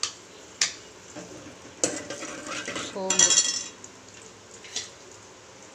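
A steel ladle clinking and scraping against a metal pot while stirring fennel seeds in hot oil, with several sharp clinks and a light frying sizzle.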